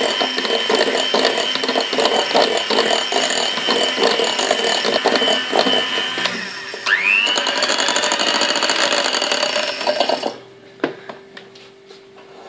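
Electric hand mixer beating cake batter in a glass bowl: a steady motor whine with the beaters rattling. It stops about halfway, starts again with a rising whine, and is switched off near the end, followed by a sharp knock.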